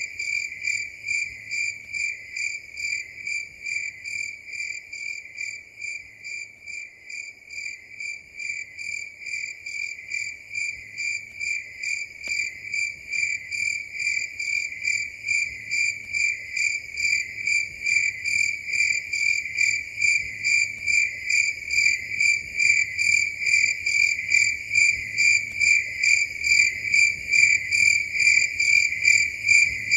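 Cricket chirping at night in a steady, high-pitched, even rhythm of about two chirps a second. It grows a little softer about a quarter of the way in, then louder toward the end.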